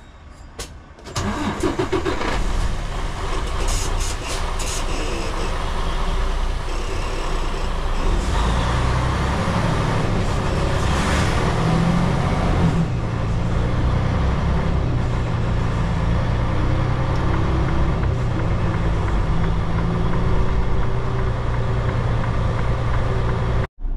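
Semi-truck's diesel engine pulling away and driving slowly, heard from inside the cab. A rushing noise comes in suddenly about a second in, and the engine grows louder around the middle.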